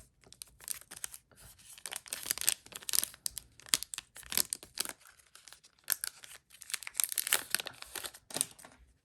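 Wrapper of a Panini Donruss Optic basketball card pack being torn open and crinkled by hand, a run of short crackling tears and rustles that stops near the end.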